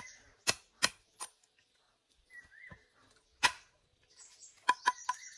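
Sharp knocks at uneven intervals: three in the first second or so, a loud one about three and a half seconds in, and three quick ones near the end. A faint high hiss runs underneath, with a short chirp about two and a half seconds in.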